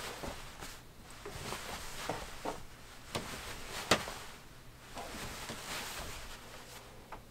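Flannel shirt being handled and spread out on a wooden table: soft cloth rustling with a few light taps, the sharpest about four seconds in.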